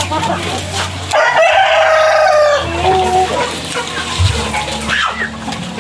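Rooster crowing once, a long call starting about a second in.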